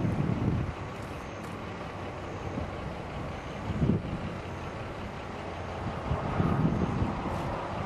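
Storm wind buffeting the microphone in gusts, strongest about four seconds in and again near the end, over a steady low outdoor rumble.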